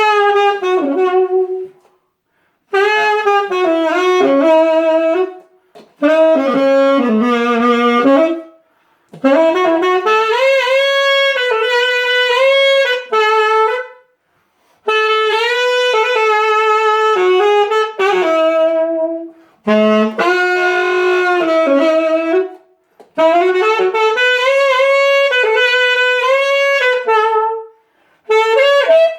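Unaccompanied saxophone played through a 3D-printed mouthpiece voiced for a bright pop tone: a melody in phrases of a few seconds each, broken by short breaths.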